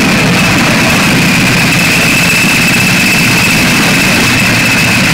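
Pulling tractor's engine running steadily at idle, loud and unchanging, with no revving.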